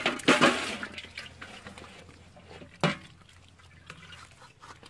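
Water splashing and dripping as caught fish are lifted by hand out of a woven bamboo fish trap into bowls of water. There is a burst of splashing at the start and a short, sharp splash about three seconds in, with smaller sloshes in between.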